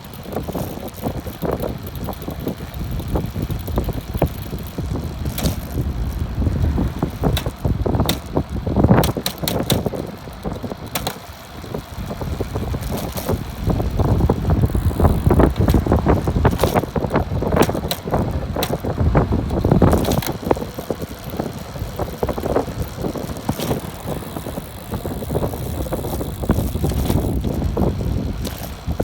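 Bicycle drivetrain running in top gear on the smallest rear sprocket, making an abnormal noise and rattling at the rear derailleur and sprocket. Irregular sharp clicks and knocks come over a steady running noise.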